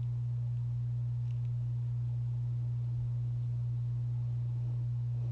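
A steady low hum on one unchanging pitch, over faint hiss.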